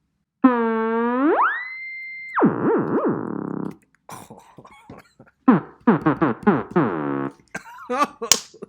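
Synthesizer tone from Ableton's Learning Synths web page, its pitch swept with the mouse. It starts low and glides steeply up to a high held note, dips and rises a couple of times, stops, then comes back and slides down in pitch.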